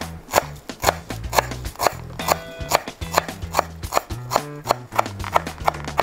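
Chef's knife chopping fresh parsley on a bamboo cutting board, sharp knocks at a steady pace of about two a second. Background music with a bass line plays underneath.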